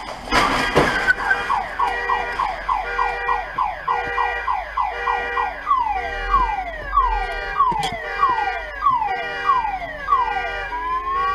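A short crash of metal on metal in the first second as the SUV hits a parked car, then a car alarm going off. The alarm sounds a run of falling chirps, about four a second at first and then about two a second, and switches to a rising tone near the end.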